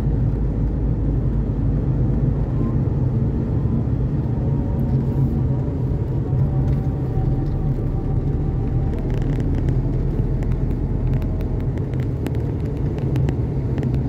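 Car driving along a village road, heard from inside the cabin: a steady low engine hum and tyre rumble.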